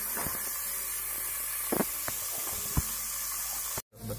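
Chopped capsicum frying in hot oil in a pan, a steady sizzling hiss with a few light clicks. The sound cuts out for a moment near the end.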